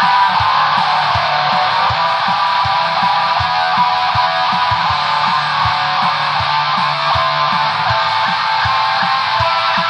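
Black metal music: dense distorted electric guitars over a bass line, with kick drum hits about three times a second.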